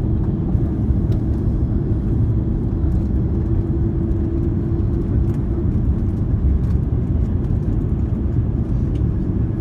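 Steady low rumble of an airliner after landing, with a faint steady hum on top and no change in level.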